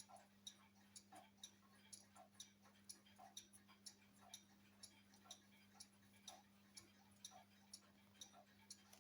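Faint clock ticking, about two ticks a second, over a low steady hum.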